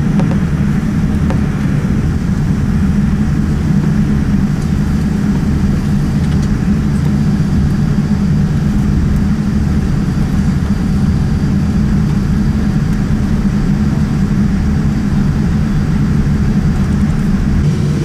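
Boeing 787 cabin noise: the jet engines and airflow make a loud, steady, deep rumble with no change in pitch or level.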